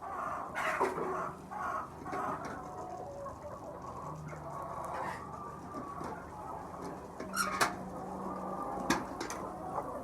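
A flock of laying hens clucking and calling together, many overlapping voices, with a few sharp clicks or knocks among them.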